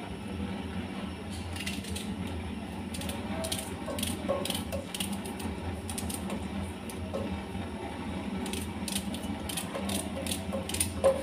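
Paring knife cutting an onion held in the hand, a run of short crisp clicks as the blade snaps through the layers, in two spells. A steady low hum lies underneath.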